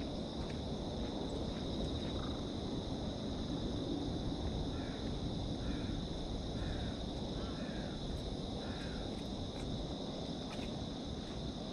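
Steady high-pitched drone of insects, with a bird calling about seven times in quick succession in the middle, over a low background rumble.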